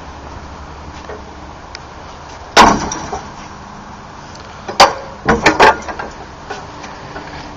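A hockey dasherboard gate's steel latch knocking: one loud metallic clack that rings on briefly, then about two seconds later a quick run of four sharper clacks as the latch is worked by hand.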